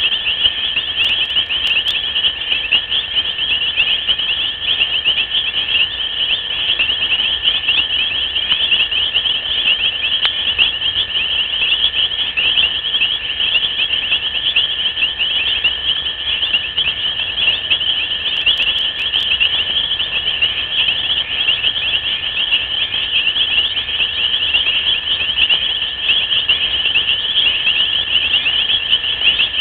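Dense, steady, high-pitched chorus of night insects, a shimmering trill with a second steady lower tone beneath it.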